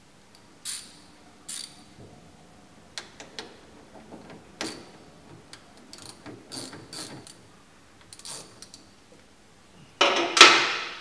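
A ratchet wrench clicking in short, irregular strokes as the nut on an engine battery's positive terminal is turned to fasten a 12-volt power lead. A louder clatter of about a second comes near the end.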